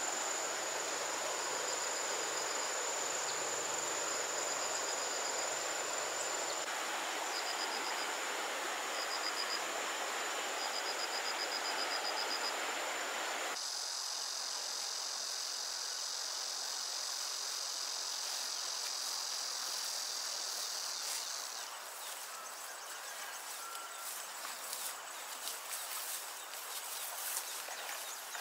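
Insects calling outdoors over a steady rushing background: a constant high buzz with short pulsed chirps, then, after a cut about halfway, a louder steady high insect drone that stops about three quarters through. Light rustling and steps through grass follow near the end.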